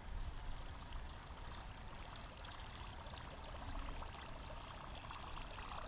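Faint creek water trickling steadily, with a low rumble underneath.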